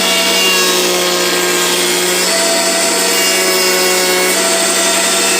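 A motor-driven machine running steadily at speed: a constant low hum with several thin whining tones over it, which shift slightly in pitch twice.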